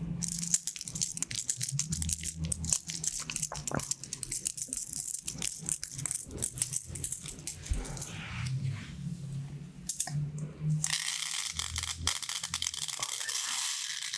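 Pin-art toy's many pins rattling and clicking as they slide and shift, like beads or Skittles, a dense patter of small clicks that thickens into a steadier rattle near the end.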